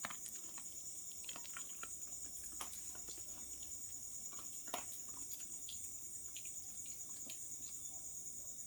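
A dog eating dry kibble: scattered short crunches and clicks, over a steady high chirring of crickets.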